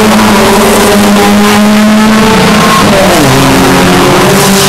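Several small race-car engines running hard together at high revs. About three seconds in, one engine note drops steeply in pitch.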